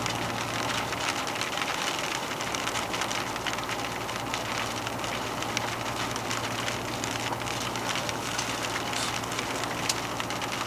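Truck cab noise while driving on a motorway: a steady low engine drone under road and wind noise, with frequent light crackling ticks.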